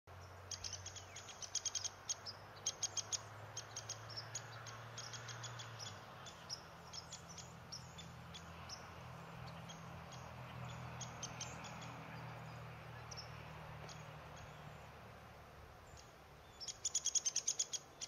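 Small birds chirping in quick runs of short high notes, loudest near the start and again near the end, over a faint low hum that fades out before the end.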